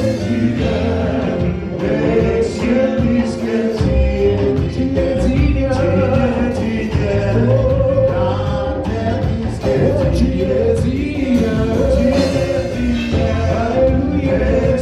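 Live gospel praise-and-worship band playing, with drums and voices singing over it.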